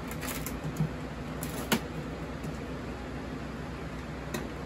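A few light clicks and taps over a steady background hum, the sharpest about a second and a half in.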